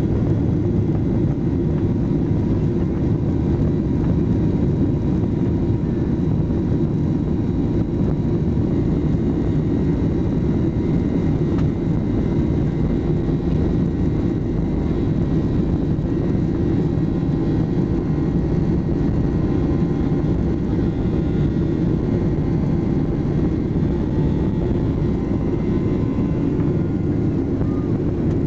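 Boeing 737-800's CFM56-7B jet engines at takeoff thrust during the takeoff roll, heard from inside the cabin over the wing: a loud, steady rumble with faint high whining tones above it.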